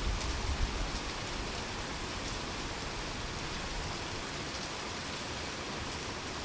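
Heavy rain falling steadily, a dense even hiss of drops on surfaces, with a low rumble underneath during the first few seconds that fades out.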